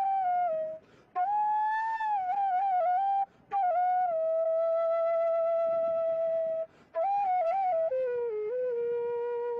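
Background music: a slow solo melody of long held notes with short ornamented turns, broken by three brief pauses. It steps down to lower notes about eight seconds in.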